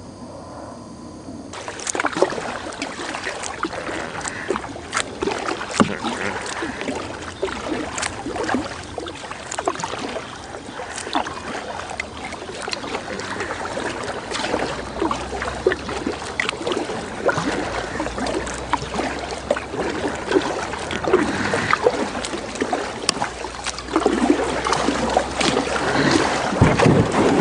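Kayak paddle splashing and water dripping, with many sharp knocks and scrapes as the kayak drags through shallow water choked with debris and gets caught, starting about a second and a half in and growing a little louder near the end.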